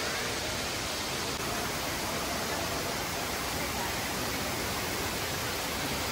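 Artificial waterfall in an indoor garden running: a steady, even rush of falling water.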